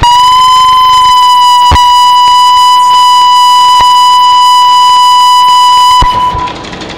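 A loud, steady, high-pitched tone, buzzy with overtones, from a live experimental sound-and-film performance. It starts abruptly, holds one pitch with a couple of faint clicks, and cuts off about six seconds in.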